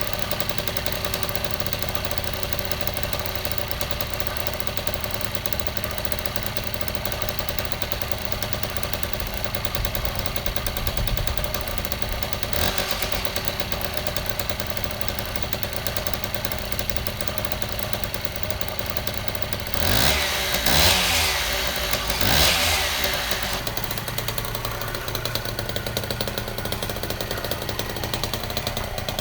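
Piaggio moped's small two-stroke single-cylinder engine idling steadily, holding its idle a little high on a new spark plug, which the owner takes for the cure of its failure to hold idle. About twenty seconds in it is revved briefly two or three times, rising and falling in pitch.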